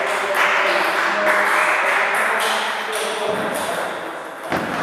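Echoing sports-hall noise: voices talking, with sharp clicks of table tennis balls being struck and bouncing.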